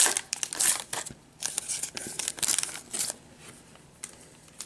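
Clear plastic pack wrapper being torn open and crinkled by hand, in crackling bursts over the first three seconds, then quieter.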